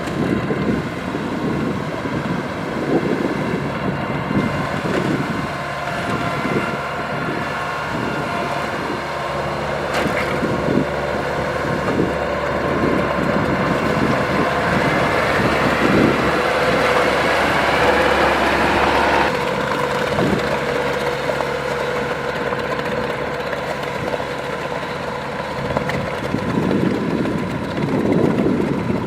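Kubota DC-105X combine harvester's diesel engine running steadily under the rattle of its working machinery. A rising hiss builds from a little before halfway and cuts off suddenly about two-thirds in.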